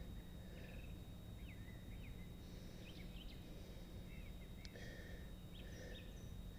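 Faint birdsong: scattered short chirps and quick rising whistles over a low steady background hum.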